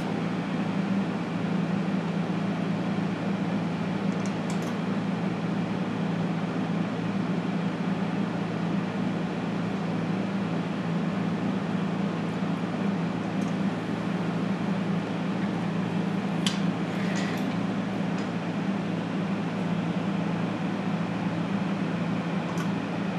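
Steady low electrical hum with a few faint, short clicks.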